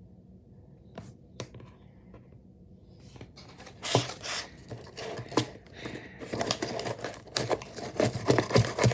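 Hands handling a homemade toy vending machine and its prize: rustling, crinkling and tapping. There are a couple of soft clicks at first, then it grows busier from about three seconds in, with sharp clicks near the end.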